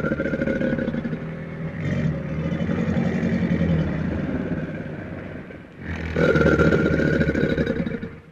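An animal growling in long, rough, rasping growls: one runs for more than five seconds, and a second starts about six seconds in.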